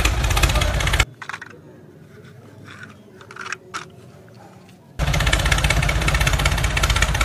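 Tractor engine idling with a steady pulsing beat, cutting off abruptly about a second in. In the quiet gap a few soft clicks and taps come as a toy trolley is hooked onto a plastic toy tractor's hitch, and the idling resumes suddenly about five seconds in.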